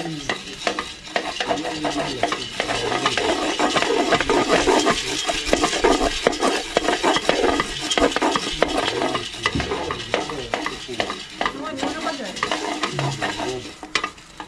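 Green coffee beans being stirred with a stick in a pot over a wood fire as they roast, a continuous dense rattling and scraping of beans against the pot.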